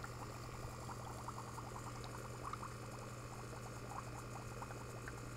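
Hydrogen gas bubbling from a tube into soapy water: a fine, irregular crackle of small bubbles forming and popping, several ticks a second, over a steady low hum.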